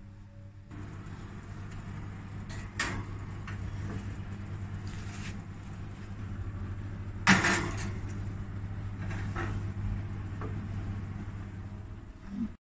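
Electric oven running with a steady low hum, while a baking dish and the metal oven racks clatter, with one loud knock about seven seconds in. The oven door is swung shut near the end.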